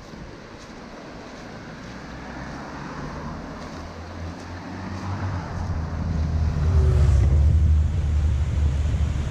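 A motor vehicle passing close by, its low engine and road rumble growing louder to a peak about seven seconds in, over the steady rush of a mountain stream.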